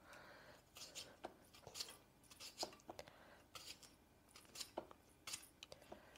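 Faint, irregular light clicks and taps of kitchen utensils against dishes as food is prepared at a counter.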